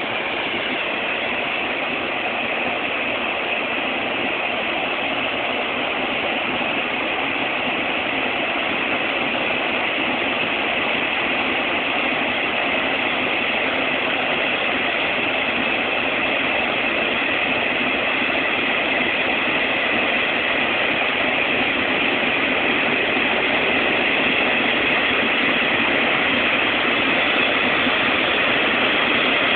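Airbus A380's four turbofan engines running, a steady jet rush with a faint high whine, growing slowly louder as the aircraft moves on the runway.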